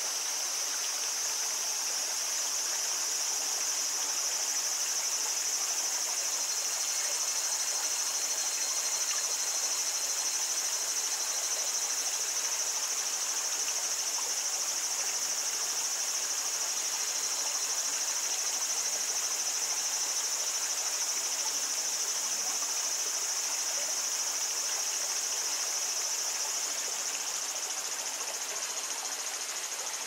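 Cicadas singing in a steady, high-pitched continuous drone over the even babble of a small stream; the cicada sound eases off near the end.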